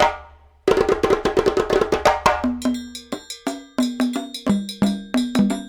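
Background music, a quick percussive track of wood-block-like hits and short plucked or struck notes in a steady beat, starting about a second in after a brief drop.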